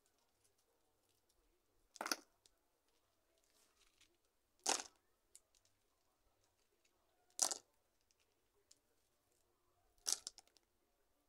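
Four short crunching scrapes of potting soil being handled during repotting, evenly spaced about two and a half seconds apart.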